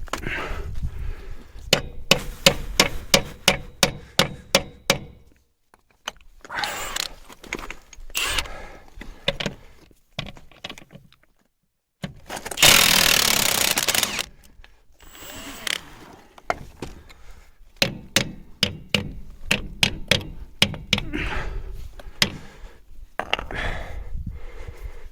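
Milwaukee impact wrench working on wheel nuts. Runs of sharp, evenly spaced metallic knocks are followed by a loud burst of continuous hammering about halfway through.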